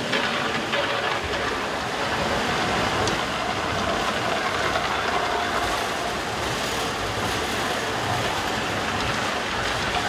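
Funicular railway car running along its track: a steady rolling rumble and rattle of wheels on rail, with a faint whine.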